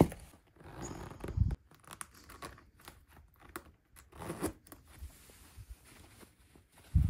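Black leather back-zip boots being handled and pulled off: rustling and scraping of leather and cloth, with dull thumps at the start, about a second and a half in, and near the end.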